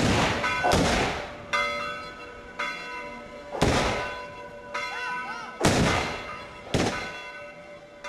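Black-powder arquebuses fired one after another in a ragged volley, about seven sharp shots at uneven intervals, each leaving a short echo. Church bells ring steadily between the shots.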